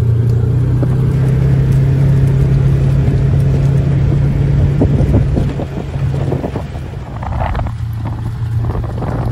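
Side-by-side utility vehicle's engine running steadily under way with a low hum, easing off about six and a half seconds in.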